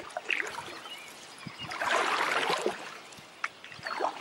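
Water splashing and trickling around a paddled canoe, with one louder paddle-stroke swoosh about two seconds in and a few light knocks.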